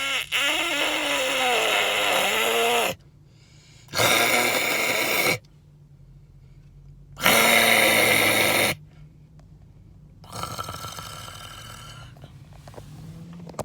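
A person making loud, harsh vocal noises: four bursts of about one and a half to three seconds each, the last one quieter.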